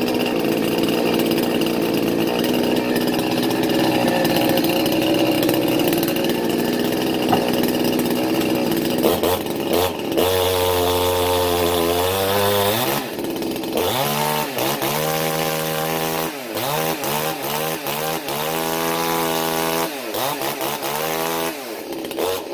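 A 25cc Chinese Stihl-clone tree-climbing chainsaw's two-stroke engine runs just after a cold start on choke. It holds a fast, steady speed for about ten seconds, then its speed swings down and up over and over.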